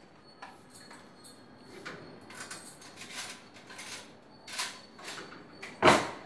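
A string of soft clicks and rustles of items being handled on a kitchen counter, with one much louder knock near the end.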